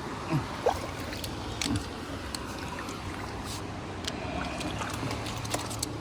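River water running steadily, with a few brief sharp sounds in the first two seconds.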